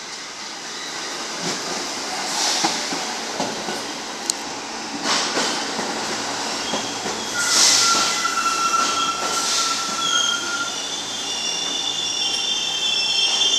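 R46 subway train pulling in along the platform and slowing: wheels clicking over the rail joints, with surges of hiss. From about halfway through, a steady high-pitched squeal of braking joins in and persists.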